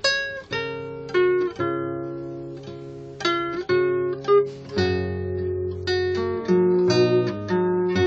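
Nylon-string classical guitar played fingerstyle: plucked melody notes and chords over changing bass notes, each note ringing and fading, with no voice.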